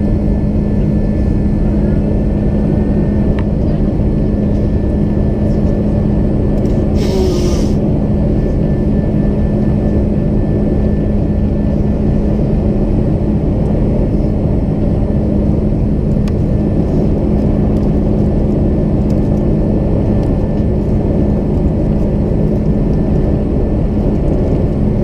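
Airbus A330 jet engines and rushing air heard inside the passenger cabin: a steady drone with a strong low hum. A brief hiss comes about seven seconds in.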